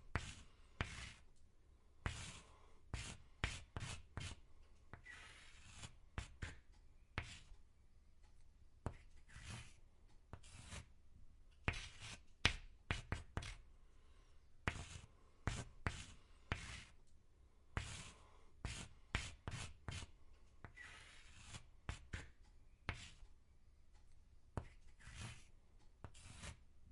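Chalk writing on a chalkboard: irregular short scratchy strokes and taps of the chalk tip against the board, coming in quick clusters with brief pauses between words.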